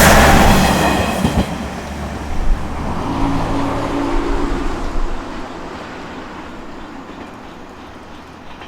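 JR Koumi Line train going over a level crossing, its wheels running on the rails, loud at first and fading steadily as it moves away.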